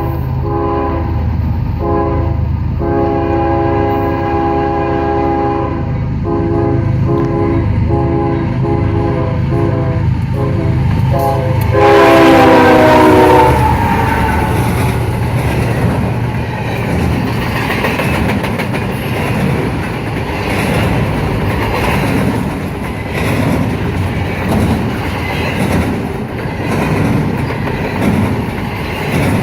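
CSX diesel locomotive sounding its multi-tone horn in a string of blasts as it approaches. The horn is loudest and drops in pitch as the locomotive passes, about twelve seconds in. Then come the rumble and clickety-clack of the train's cars rolling by.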